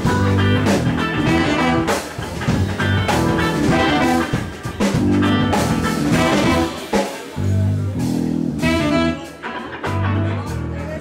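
Live jazz combo playing: saxophone and trombone play the melody together over electric guitar, a low bass line and a drum kit.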